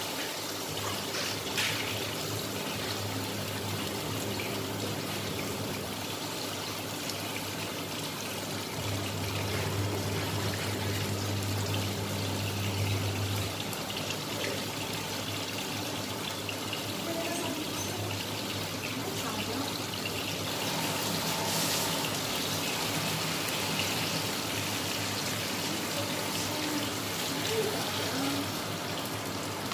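Steady sizzle and hiss of chicken and vegetables frying in a wok, with a low hum during the first half. Near the end a cup of water is poured into the wok.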